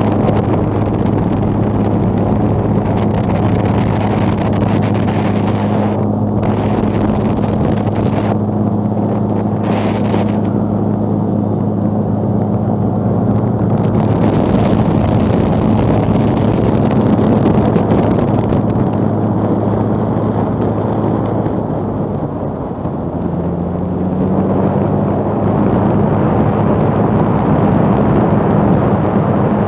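Flex-wing microlight trike's engine running steadily in flight, with wind rushing over the microphone. About 22 seconds in the engine note drops and quietens briefly, then comes back up.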